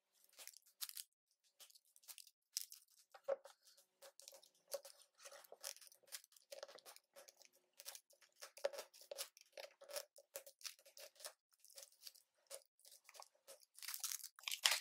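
Faint plastic scratching and rustling in many short, irregular scrapes as the plastic seal strip is peeled off a plastic toy package and the package is turned in the hands.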